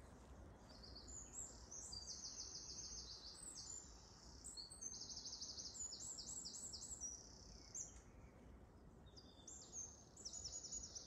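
Small songbirds singing in woodland: a run of high, fast trilled phrases, each a second or two long, one after another, with a short pause about eight seconds in.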